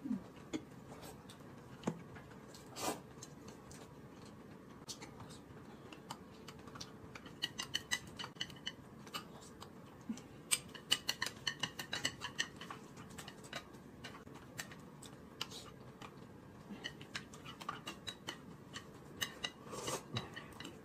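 Quiet tableware sounds of eating: a metal spoon clicking and clinking against a small glass bowl, and chopsticks tapping a plate. A few taps at first, then a quick run of small clicks and light clinks through the second half.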